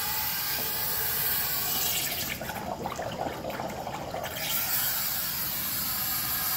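Compressed air at about 10 psi hissing out of a Crusader 6.0 marine transmission cooler. For about two seconds in the middle the hiss gives way to bubbling and gurgling as the cooler is plunged into a tub of water. The air escaping on the water side is the sign of an internal leak: the cooler is bad.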